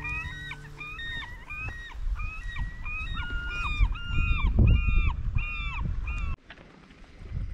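Many gulls calling over one another, short mewing calls about two a second over a low rumble, cutting off abruptly about six seconds in.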